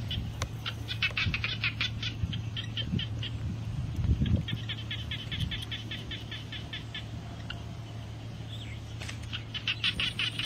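An animal calling in rapid chirping bouts of about eight pulses a second, three bouts of one to two seconds each, over a low steady hum.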